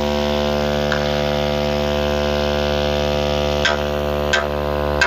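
A steady, loud low bass tone played through the DS-42G040 4-inch mid-bass drivers, heard as an unbroken hum with a dense stack of overtones. A few short clicks come about a second in and again near the end.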